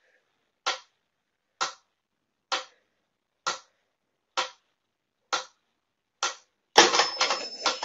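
Mechanical pyramid metronome ticking at a steady slow beat, a sharp click a little under once a second, seven times. Near the end there is a louder jumble of knocks and rustling.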